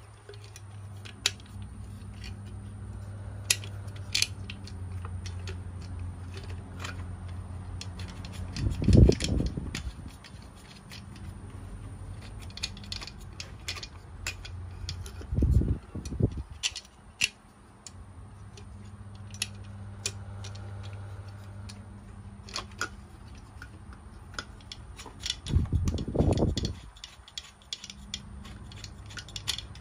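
Small clicks, ticks and rattles of parts being handled while a muffler and its cover are fitted to a two-stroke brush cutter engine and screwed on, over a steady low hum. Three dull low thumps stand out, about a third of the way in, around the middle, and near the end.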